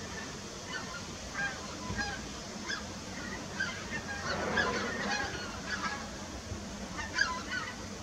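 A migrating flock of wild geese calling in flight: many short, overlapping honks, busiest about halfway through.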